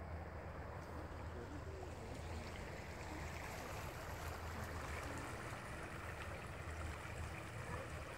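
Shallow river riffling over stones, a steady rushing that grows louder about three seconds in, over a constant low rumble.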